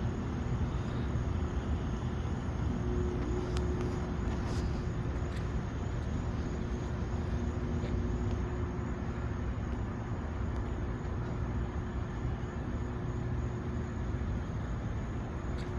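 Steady vehicle and road noise: a low rumble with a faint steady hum and a few light clicks.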